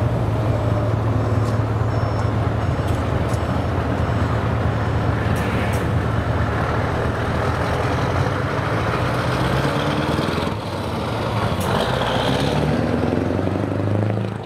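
The 14-litre V8 diesel of a 1999 Scania 144 L 530 truck running under load as the tractor unit moves off. The engine note dips briefly about ten and a half seconds in, then rises again as it pulls away.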